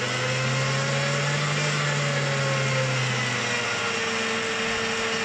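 Einhell BT-TB 13 E Digital drill press running at low spindle speed, around 260–270 rpm, as its speed is raised with the digital control. Its motor whine rises slightly, eases back and then settles steady.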